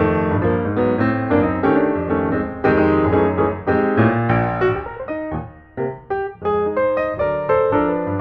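Piano music: chords and melody notes struck in a quick, even rhythm.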